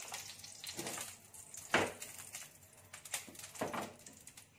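A few separate sharp clicks and ticks from a nonstick frying pan of cooking oil heating on a gas stove, the loudest about halfway through, over a faint hiss.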